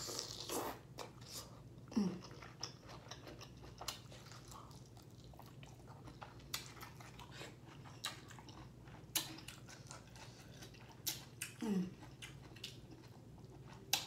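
Close-up wet chewing and mouth sounds of someone eating boiled shell-on shrimp in sauce: scattered smacks, sucks and clicks. Twice, about two seconds in and near the end, a short low hum that falls in pitch.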